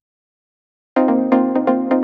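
Silence, then electronic music starts abruptly about a second in, with a quick regular beat.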